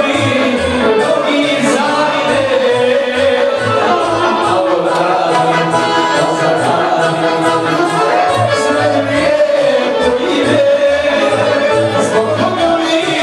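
Live Bosnian folk music: a singer over a steady, pulsing bass line.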